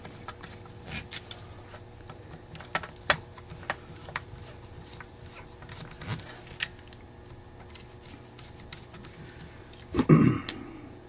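Scattered light metallic clicks and ticks of a tool working the screws that hold a Rochester 2G two-barrel carburetor's top onto its float bowl as they are snugged down, with a louder knock about ten seconds in.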